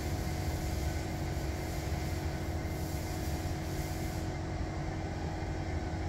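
Steady low mechanical hum and rumble with a few constant tones, unchanging throughout.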